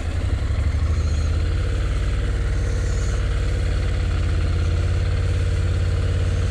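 Honda NC750X motorcycle's parallel-twin engine running steadily as the bike rides along a dirt road.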